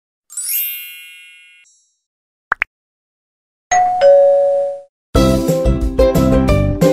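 A string of intro sound effects: a sparkling chime that rings out, two quick rising blips, then a two-note falling 'ding-dong' notification bell for a subscribe animation. About five seconds in, background music with plucked guitar starts.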